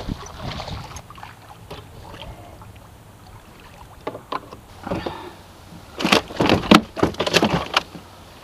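An arrowed fish splashing at the surface beside a boat, with the rattle of gear and line. Near the end comes a quick run of loud knocks and thumps as the fish is handled aboard and put into a plastic cooler.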